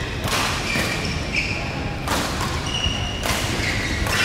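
Badminton rackets striking the shuttlecock, four sharp hits about a second or two apart, echoing in a large hall. Short high squeaks from shoes on the court floor come between the hits.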